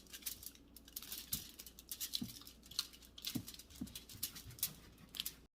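Knife cutting the ends off a cactus pear: a run of light clicks and taps with a few soft thumps, cutting off abruptly near the end.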